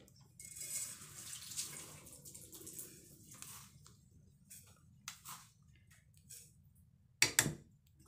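A plastic measuring spoon scooping granulated sugar in a bowl: a grainy scraping rustle for about three seconds, then a few faint ticks. Near the end, two sharp knocks close together as the sugar goes into a frying pan.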